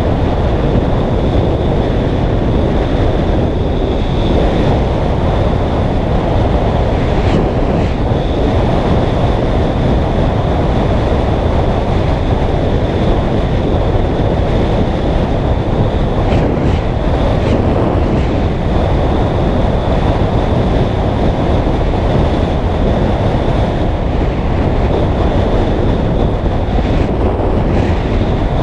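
Loud, steady wind rushing over the microphone of a triathlon bike descending fast, with a faint steady high-pitched whine and a few short clicks spread through.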